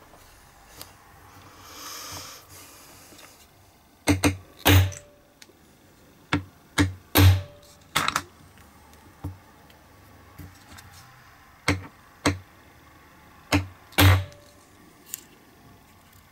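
Small hammer tapping a hand hole punch to cut round number decals out of a decal sheet on a cutting mat: about a dozen sharp knocks, often in pairs.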